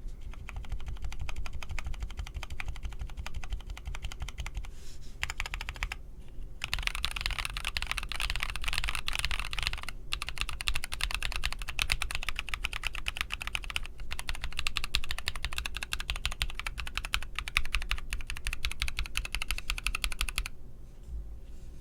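Fast typing on a Tofu 65 mechanical keyboard with Krytox-lubed Novelkey Cream switches on a brass plate: a dense run of keystroke clacks that pauses briefly about six seconds in and again near ten seconds, and stops shortly before the end. A low steady background hum runs underneath.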